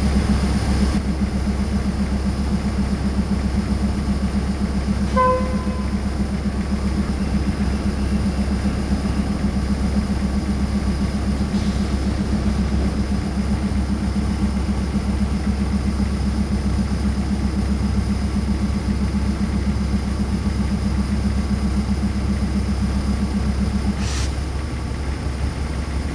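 Diesel railcar standing with its engine idling, heard from inside the passenger car as a steady low hum. A brief pitched tone sounds about five seconds in. Part of the hum cuts out near the end.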